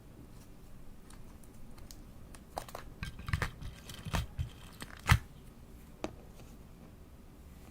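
Purple slime being pressed and stretched, giving a run of wet crackles and pops from about two and a half seconds in, the loudest pop about five seconds in.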